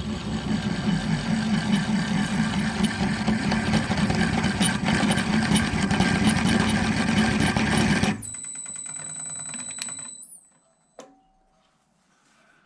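A 1-inch twist drill cutting through 3/8-inch plate on a VFD-driven floor-standing drill press, a loud, dense grinding chatter under a heavy feed. About eight seconds in the cutting noise stops abruptly, and a thin high whine carries on for about two seconds before it cuts out: the motor stalling from being leaned on too hard.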